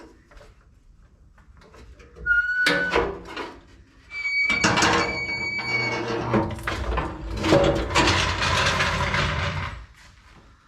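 A factory underbody splash guard being worked loose under the vehicle. There is a short squeal about two seconds in, then a longer, higher squeal. Several seconds of loud scraping and rattling follow and stop shortly before the end.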